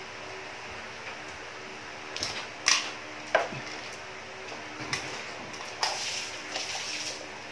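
Submersible aquarium water pump running with a steady low hum, while a few sharp clicks and knocks sound, the loudest between about two and three and a half seconds in.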